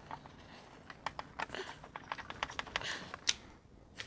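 Light, irregular clicks and taps of hands handling the oil dipstick tube and its fittings in the engine bay, the plastic and metal parts knocking as the tube is seated.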